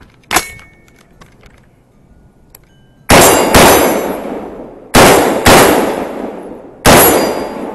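Five semi-automatic rifle shots in two quick pairs and a single, each followed by a long fading echo. Just after the last shot a faint ring of a struck steel target can be heard, and there is a sharp click just after the start.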